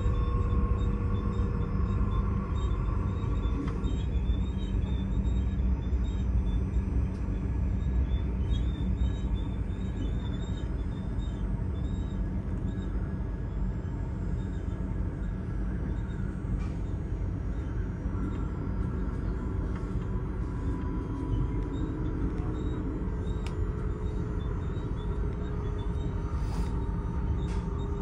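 Running noise heard inside a passenger train at speed: a steady low rumble of wheels on track, with faint whining tones that slowly drift in pitch.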